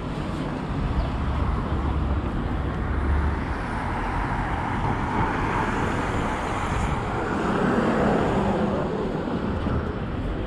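Road traffic on a harbourside street: a steady rush of car noise, with a vehicle passing that swells about halfway through and drops lower in pitch as it goes by.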